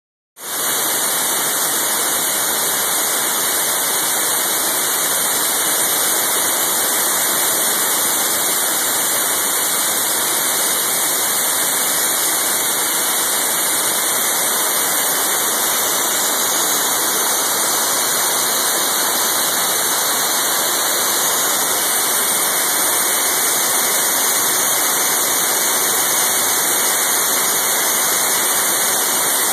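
A loud, steady hiss with no pitch or rhythm to it, starting a moment in and staying even throughout.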